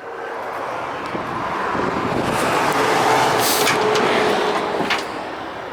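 A road vehicle passing by: tyre and engine noise swelling up to a peak around the middle and fading away again.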